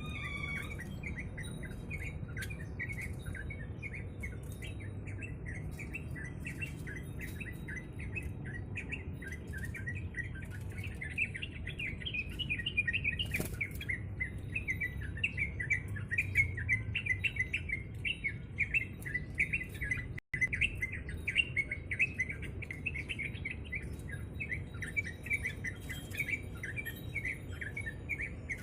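Yellow-vented bulbul (trucuk) chirping in quick, continuous runs of short notes, over a low steady background hum.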